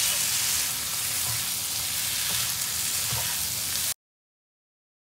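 Sauce-coated fried chicken pieces sizzling in a frying pan, a steady hiss that cuts off suddenly about four seconds in.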